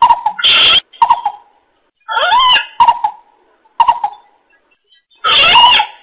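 Trapping lure recording of greater coucal and frog calls: three loud, harsh calls about half a second long, with short clipped notes between them. It is played to draw coucals to a trap.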